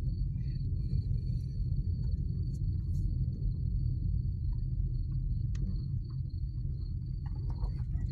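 Low, steady rumble of a car rolling slowly over a rough, potholed dirt road, heard from inside the cabin, with a few light knocks from the suspension. A thin, steady high-pitched tone runs above it.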